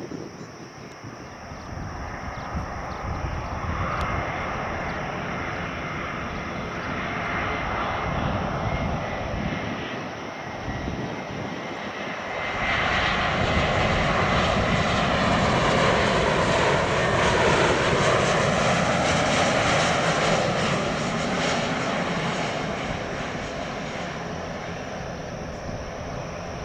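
Airbus A321neo airliner's turbofan engines on landing approach: a steady jet rush with a faint high whine, growing louder as the aircraft passes, loudest about two-thirds of the way through, then slowly fading.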